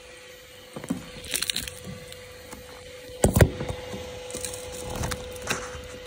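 Phone being passed from hand to hand: scattered knocks and rubbing on the microphone, with the loudest thump a little past halfway, over a steady faint hum.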